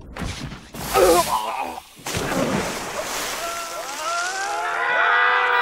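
Dramatized anime sword-fight sound effects: a sudden strike with a short cry about a second in, then a rushing spray of noise. Sustained music tones glide up and swell in over the last two seconds.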